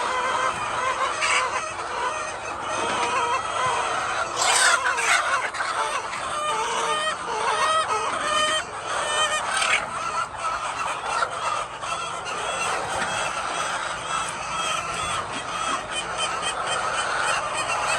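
A flock of hens clucking and calling, many short overlapping calls, with a louder burst of calls about four and a half seconds in.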